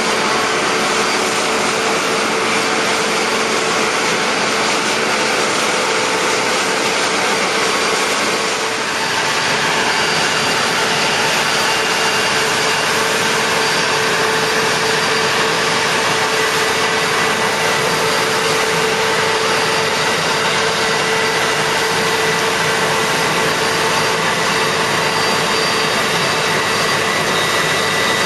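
Combine harvester running steadily while harvesting rice: a constant machine whine and hiss, with a brief dip and a slight change in tone about eight seconds in.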